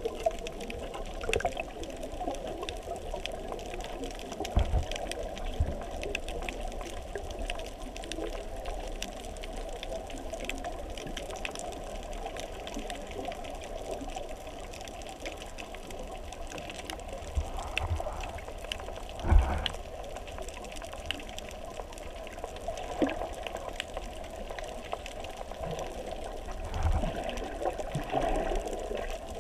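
Underwater ambience heard through a GoPro's waterproof housing: a muffled, steady rush of water with scattered crackling clicks. A few dull thumps come through, the loudest about two-thirds of the way in.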